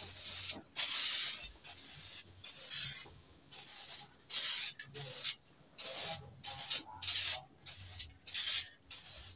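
Aerosol spray paint can (Diton Candy Tone Black) hissing in a dozen or so short bursts with brief pauses between them, as a coat of paint is sprayed onto a plastic motorcycle taillight lens.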